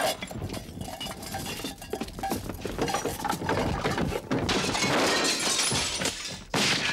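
Window glass shattering, with shards breaking and clinking down in a run of sharp crashes, and a second loud crash near the end.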